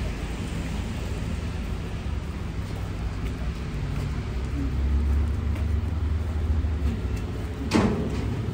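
Road traffic rumble on a city street: low vehicle engine and tyre noise that grows a little louder around the middle, with one short sharp knock near the end.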